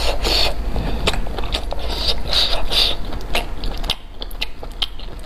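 Close-miked eating: wet slurping and sucking of food dripping with broth, mixed with sharp mouth clicks and chewing; quieter after about four seconds.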